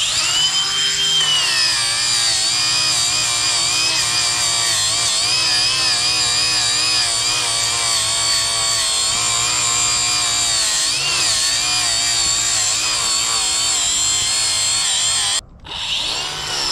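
Handheld power tool running under load, cutting, with its motor pitch wavering as the work bears on it. It cuts out briefly near the end, then starts again.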